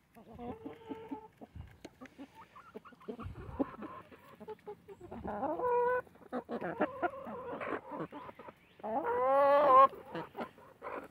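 Backyard hens clucking and calling as they peck sunflower seeds from a hand, with short pecking clicks between the calls. The loudest sound is a long, wavering call about nine seconds in.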